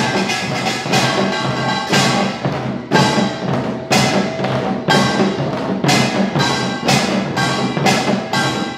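Utdari samul nori: two kkwaenggwari small brass gongs clanging a fast pattern over janggu hourglass drums, with a strong accented stroke about once a second.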